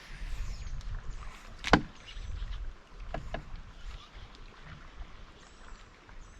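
Knocks and rattles of someone moving about in a small fishing boat, picked up through an aluminum camera pole, over a low rumble. One sharp knock stands out a little under two seconds in, with a few smaller clicks about a second later.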